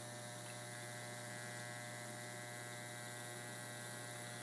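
Faint, steady electrical hum with a buzzy edge, unchanging throughout.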